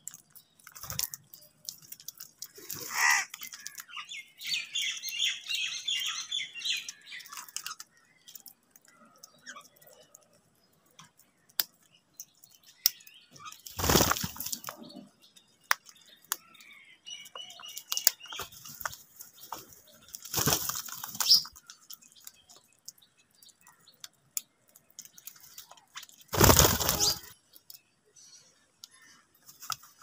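House crows feeding at bowls and scraps on concrete: scattered pecks and crunches, with runs of high bird chirps a few seconds in and again past the middle. Four loud rushing bursts, about a second long each, break in at intervals.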